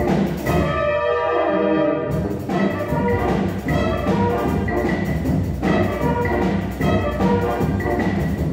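Brass band with percussion playing a concert piece. It opens with a held full brass chord over a low line sliding downward, then goes into loud rhythmic ensemble playing with regular accents about two seconds in.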